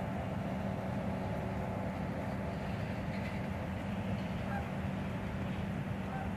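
Steady outdoor background rumble with faint geese honking a couple of times, about four and a half seconds in and again near the end.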